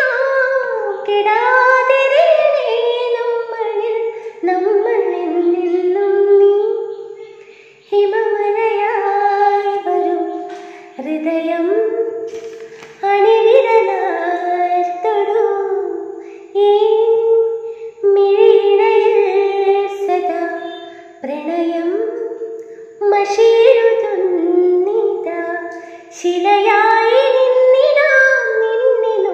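A woman singing a Malayalam song solo and unaccompanied, in phrases a few seconds long with brief breaks between them, into an earphone microphone held at her mouth.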